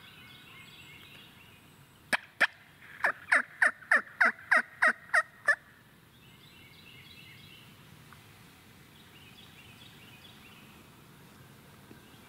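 Wild turkey calling: two sharp notes, then a fast run of about eight loud calls, each dropping in pitch. Fainter calls come and go before and after.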